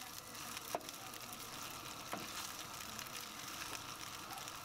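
Penne and minced meat sizzling steadily in a frying pan while a wooden spoon stirs it, with two light knocks of the spoon against the pan about a second and two seconds in.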